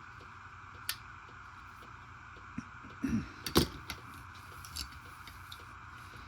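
Handling of pocket knives: a sharp click about a second in, then a short run of knocks and clacks, the loudest about three and a half seconds in, and a few light clicks near the end, over a steady background hiss.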